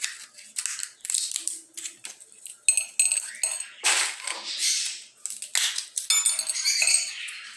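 Dry fava bean pods crackling and snapping as they are broken open by hand, with the beans clinking onto a ceramic plate. About halfway through, the dry pods in a glass bowl rustle as a hand reaches in.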